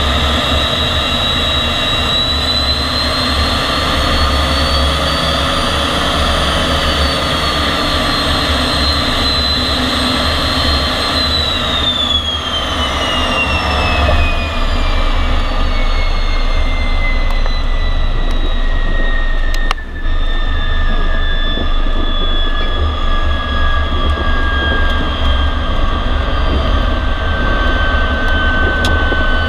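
MiG-15 jet engine running: a high whine over a steady low rumble. The whine rises a little, then from a little before halfway falls slowly and steadily in pitch.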